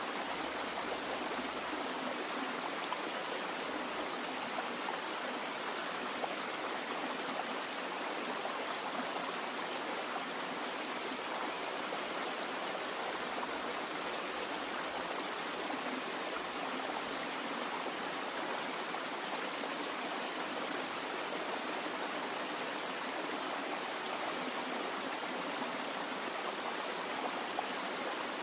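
Steady rushing of flowing water, a stream running over rocks, even and unbroken throughout.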